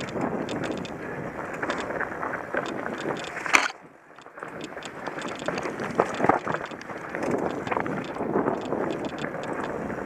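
Mountain bike ridden fast down rough dirt singletrack: wind rushing over the microphone, tyre noise and rapid clicks and rattles from the bike over the ground. A sharp clack comes a little over three seconds in, then the rush drops away for about a second before picking up again.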